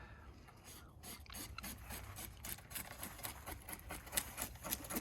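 Scales being scraped off a bluegill: quick repeated rasping scrapes, a few per second, starting about a second in.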